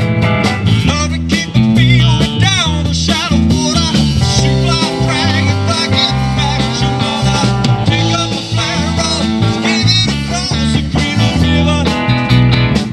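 Live rock band playing an instrumental passage on electric guitars, bass guitar and drum kit. Over the top, a lead guitar line with bent, wavering notes.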